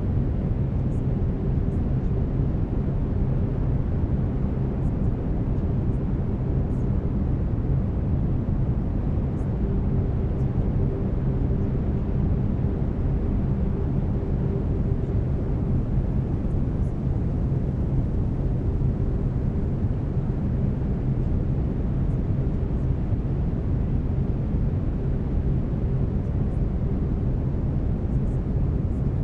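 Steady brown noise: an even, deep rumbling hiss, with faint steady low tones of binaural beats running beneath it.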